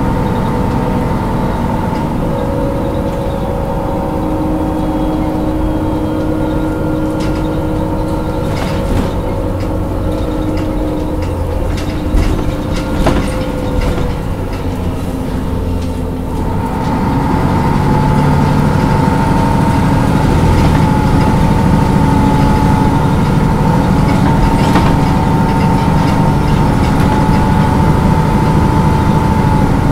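Diesel engine of a 2000 MAN A23 NG313 articulated city bus idling while parked, running steadily. About halfway through it grows louder, and a new, higher steady hum joins in and holds.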